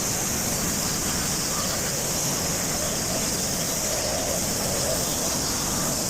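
Pressure washer spraying water onto concrete: a steady, unbroken hiss with a low rumble underneath.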